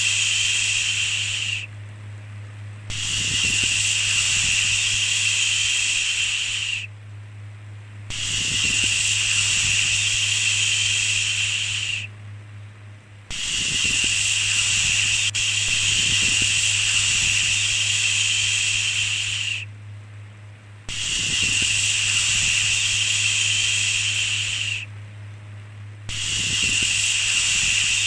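A soft 'shhh' shushing sound of the kind used to soothe babies, repeated in long hissy stretches of about four to six seconds, each followed by a pause of about a second. A steady low hum runs underneath.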